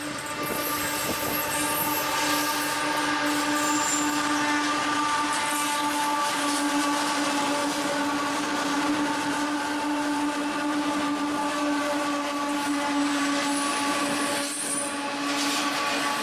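Diesel-hauled freight train passing close by: the locomotives' engines running with a steady whine over the rumble and wheel noise, getting louder in the first moment and then holding.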